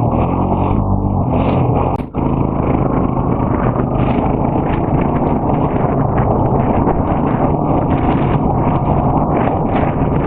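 ATV engine running while riding, over a steady rushing noise. The sound dips out briefly about two seconds in.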